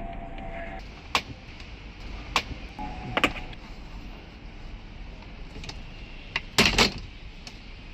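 Plastic trim clips on a Tesla Model 3/Y centre console snapping loose as the trim is pried up with a plastic pry tool: scattered sharp clicks, the loudest two close together near the end.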